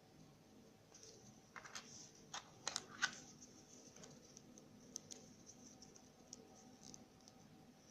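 Small plastic and wrapper handling noises: a quick run of sharp clicks and short rustles about two to three seconds in, then a few faint ticks.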